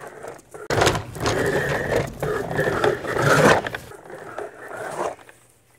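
Hands rubbing and smearing wet paint across a painted board, a rough scraping sound that starts suddenly about a second in and lasts about three seconds.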